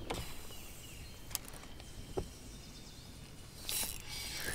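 Quiet outdoor ambience with a few faint isolated clicks, likely fishing tackle being handled, and a brief swish near the end.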